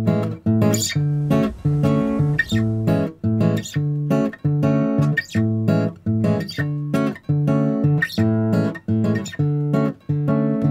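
Background music: guitar chords strummed in a steady, even rhythm.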